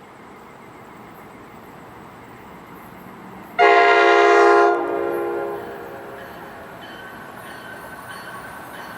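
Approaching electric train's multi-chime air horn (a Nathan K5LA) sounding one short blast of several notes together about three and a half seconds in, dying away over the next second or so. Afterwards the rumble of the oncoming train grows.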